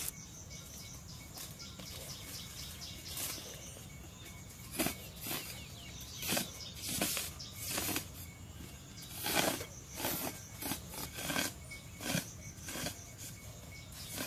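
Soil being dug and scraped with a long-handled hand tool: irregular short scraping strikes into the dirt, beginning about five seconds in and coming one to three a second.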